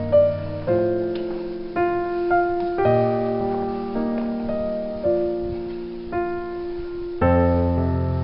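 Slow solo piano music: chords struck about once a second, each ringing out and fading before the next.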